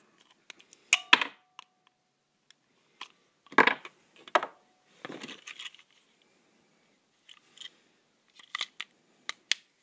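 Irregular clicks and knocks of hard plastic being handled: the battery holder and battery compartment of a toy sound train, with AA batteries in the holder.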